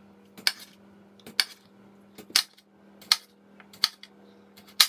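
Kitchen knife slicing raw potato into discs and knocking on the chopping board: sharp knocks, about six of them, roughly one a second.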